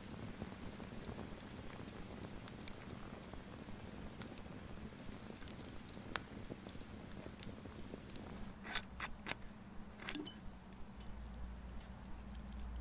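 Wood fire crackling, with irregular sharp pops and snaps over a faint hiss.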